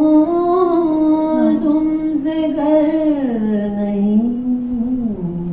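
A woman singing a slow melody into a hand-held microphone, holding long notes that step down in pitch through the second half.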